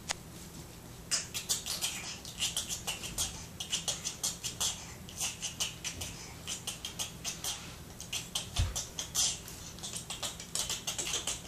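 Small hard pieces clicking and tapping irregularly, several light clicks a second, with one dull thump near the end.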